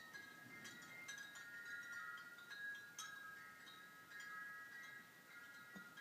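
Wind chimes ringing softly, several overlapping tones struck again every second or two at irregular moments. Near the end a short, faint low snore comes from the sleeping dog.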